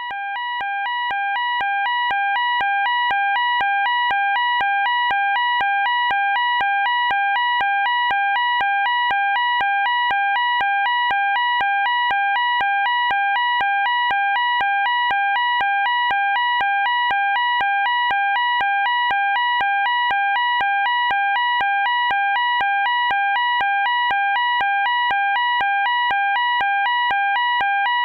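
Electronic fire alarm sounding a two-tone warble, rapidly switching back and forth between two high pitches. It fades up over the first few seconds, then holds steady and loud.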